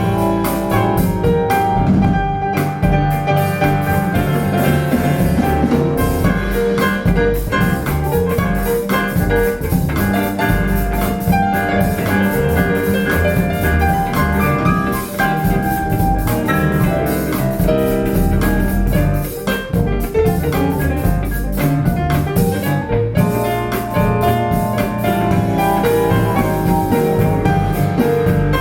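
A jazz-style song with piano and drum kit, played back through Wharfedale Linton Heritage loudspeakers.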